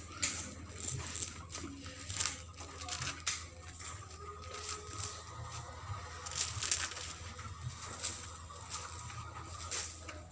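Irregular rustling, scraping and tearing of mattress material being handled, in scattered short strokes over a steady low hum.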